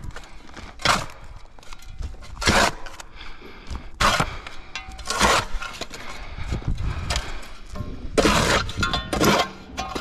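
Excavator bucket digging into stony soil: repeated crunching, scraping strokes every second or two over the machine's low engine rumble.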